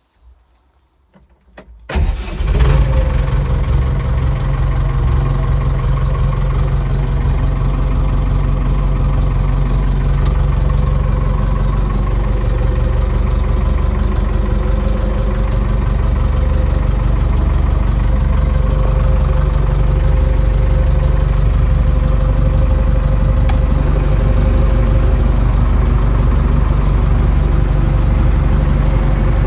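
Backhoe loader engine starting about two seconds in, then running steadily at idle.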